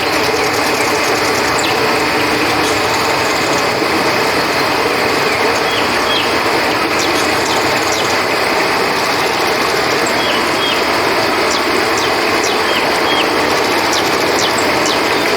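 Flowing river water with a steady chorus of crickets trilling over it and scattered short chirps.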